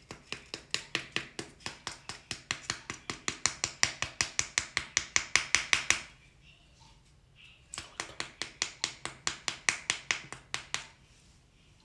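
Small makeup brush jabbed rapidly into a crumpled makeup container held in the hand, making quick, light clicks about six a second. The clicks come in two runs, the first growing louder and stopping about six seconds in, the second starting nearly two seconds later.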